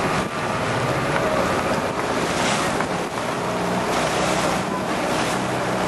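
Fishing boat's engine running steadily at sea, with wind buffeting the microphone.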